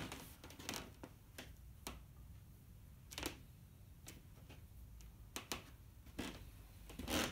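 Scattered light clicks and knocks at irregular intervals over a faint low hum, with a louder knock near the end.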